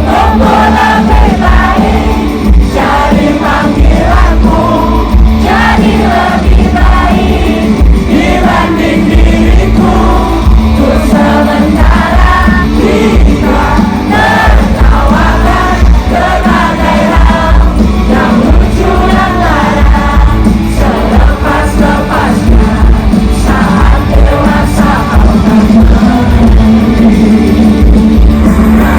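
Loud live band music at a concert, with sung vocals and a heavy, constant bass.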